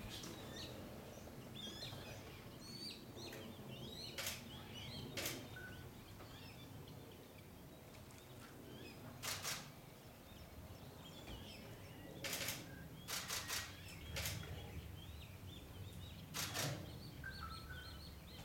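Faint background of small birds chirping and singing, with a handful of short, sharp noises scattered through.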